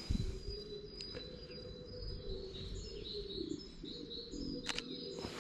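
Small birds chirping, a run of short high chirps in the middle, over light outdoor background noise, with one sharp click near the end.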